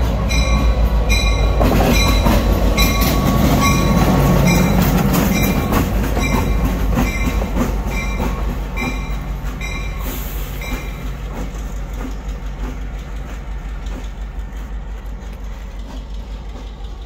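Diesel switcher locomotive hauling a hopper car as it passes close by and runs away down the track. Its engine rumble is loudest a few seconds in and then fades steadily. Regular ringing strokes, about one a second, run until about ten seconds in and then stop.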